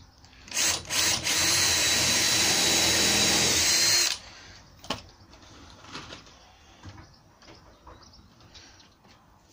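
Cordless drill with a twist bit drilling a pilot hole into the edge of plywood for a drywall screw: two brief spins, then a steady run of nearly three seconds that stops suddenly just after four seconds in. A single sharp click follows about a second later.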